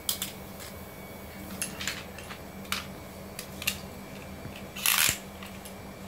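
Beyblade spinning tops clicking and clinking against each other and the tile floor as they are picked out of a pile by hand, in scattered short clicks, with a louder brief scraping noise about five seconds in.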